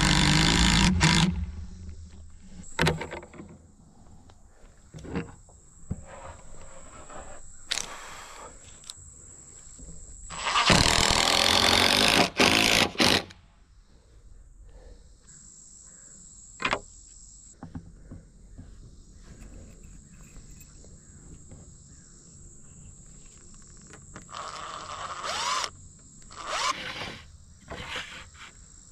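Cordless impact driver driving screws into pressure-treated 2x6 lumber, in two loud spells: about a second at the outset and about three seconds a little over a third of the way in. Scattered knocks and clicks of the boards being handled come between them.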